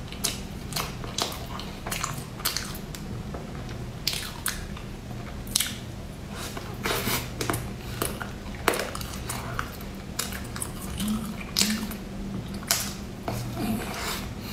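Close-up chewing of a soft, cheesy meat-floss bun: wet mouth smacks and sticky clicks, irregular and frequent.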